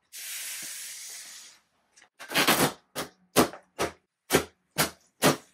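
Old upholstery fabric being pulled and ripped off a wooden rocking chair: a brief rustle, then a regular run of short ripping strokes, about two a second.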